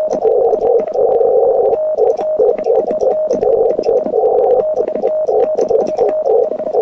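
Morse code (CW) tone near 600 Hz from the transceiver, keyed on and off in rapid dots and dashes over a band of receiver hiss. Sharp mechanical clicks come from the Vibroplex Lightning Bug semi-automatic key as it is worked.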